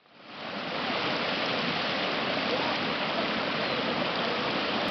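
Steady rushing of water from a steaming geothermal hot spring, fading in over the first second.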